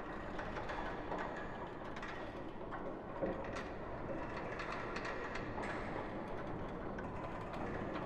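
Ghost-ship horror ambience: a steady, dense rumbling noise bed with scattered clicks and knocks, one sharper knock about three seconds in.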